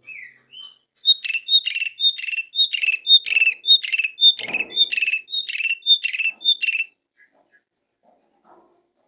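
Pied starling (jalak suren) calling: a short sliding note, then a steady run of about a dozen identical two-part notes, high then lower, about two a second, stopping about seven seconds in.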